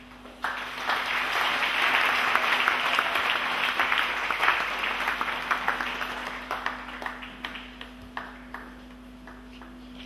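Congregation applauding: clapping breaks out about half a second in, builds to a dense round, then thins to scattered claps and dies away over the last few seconds.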